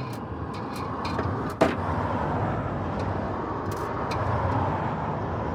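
Steady road traffic noise, with one sharp click about a second and a half in and a few fainter clicks.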